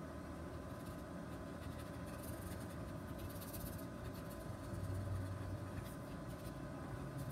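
Felt-tip marker rubbing on paper in short strokes as a drawing is coloured in, over a faint steady low hum.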